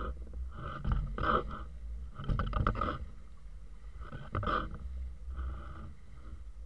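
Small sailing yacht under way: irregular swishes and splashes of water along the hull, several in a few seconds, over a steady low rumble of wind on the microphone.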